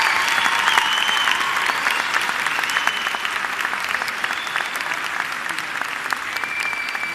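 Audience applauding, dense clapping that slowly dies down.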